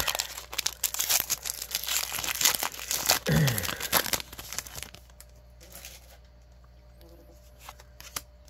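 Foil wrapper of a Pokémon trading card booster pack being torn open and crinkled by hand, a dense crackling for about the first four and a half seconds. After that only faint handling sounds remain as the cards are drawn out.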